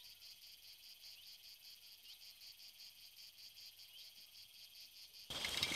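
Faint insects chirping in a steady, even pulse, about five or six chirps a second. Near the end a much louder sound, with music, cuts in abruptly.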